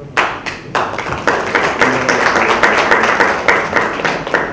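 Audience applauding: a few separate claps at first, building about a second in to steady applause, which tapers off near the end.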